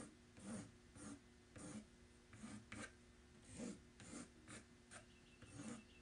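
Faint strokes of a fine oil-paint brush on a small painting panel, about ten short brushing strokes at an uneven pace.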